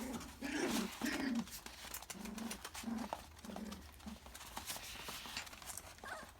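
A litter of five-week-old Labradoodle puppies playing in a small pen: many light clicks and scuffles from paws, claws and toys on the floor, with short low vocal sounds in the first few seconds.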